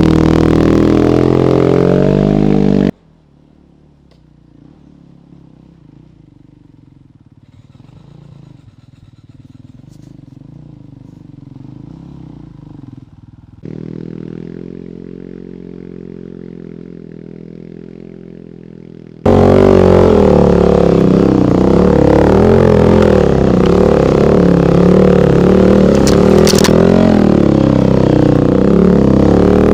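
Single-cylinder enduro dirt bike engines labouring up a steep hill climb. A loud, close engine cuts off suddenly about three seconds in to a faint engine that grows slowly louder. About nineteen seconds in it cuts back to a loud, close engine running steadily under load.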